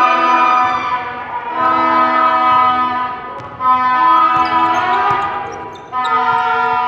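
Background music of long held synth-like chords that change every second or two, with short breaks between them.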